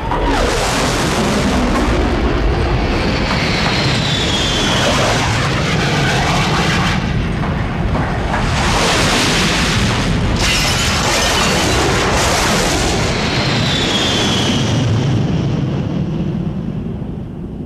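Deep, loud rumbling roar of jet aircraft passing low overhead, with a high whine that falls in pitch twice as they go by. The roar eases off near the end.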